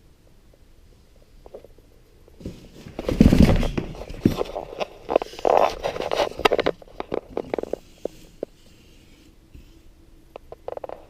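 Handling noise close to the microphone: a loud rumbling bump about two and a half seconds in, then irregular rustling and sharp clicks, as the new electric skateboard and its packaging are handled.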